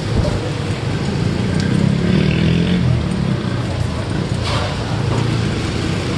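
Busy street ambience: a steady low rumble of traffic with indistinct voices in the background, and a single short knock about four and a half seconds in.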